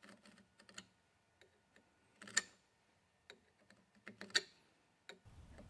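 Marking knife scoring a line in an osage orange gunstock along the edge of the steel receiver: faint short scrapes and clicks of the blade, with two louder strokes about two and four seconds in.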